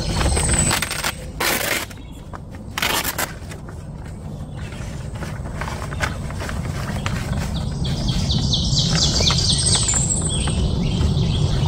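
Fabric rustling twice in short bursts as a hanging pocket organizer is handled and hung. A bird sings a quick run of repeated chirps near the end, over a steady low rumble.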